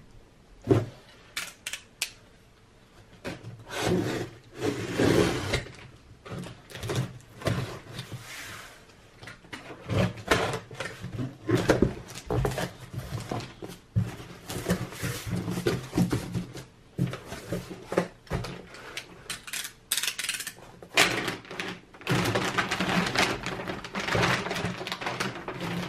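Utility knife slicing through packing tape on a large cardboard box, then the cardboard flaps being pulled open and handled, with irregular scrapes, rustles and knocks.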